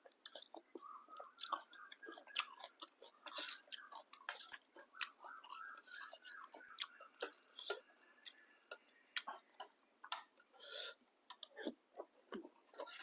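Close mouth sounds of someone eating a bowl of instant Thai boat noodles: chewing with many small wet clicks and smacks at an uneven pace.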